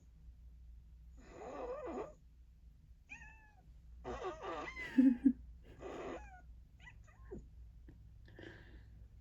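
Alexa's "cat fart" sound effect, played through a smart speaker: a cat meowing several times, its calls bending up and down in pitch, mixed with fart noises. The loudest part is a pair of short, low blasts about five seconds in.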